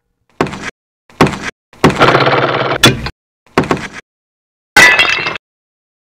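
Cartoon sound effects for an animated title: five short noisy hits in a row, each starting suddenly and fading, the third one longer, drawn out over about a second.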